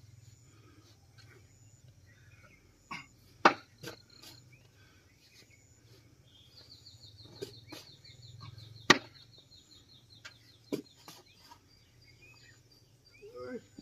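Spades digging and scraping into sand and soil, with a few sharp knocks as the blades strike, the loudest about three and a half seconds in and again near nine seconds. A steady low hum runs underneath, and a rapid high-pitched trill sounds through the middle.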